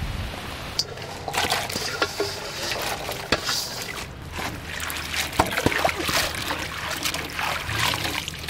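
Green chillies being washed by hand in a steel bowl of water: water splashing and trickling as the chillies are swished about, with many sharp clicks.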